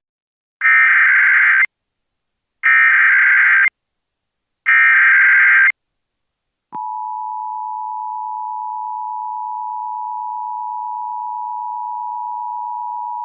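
Emergency Alert System header: three short, loud bursts of SAME digital data warble, each about a second long and about a second apart. About two-thirds of a second after the last burst the steady two-tone EAS attention signal begins and holds. Together they open an EAS test alert.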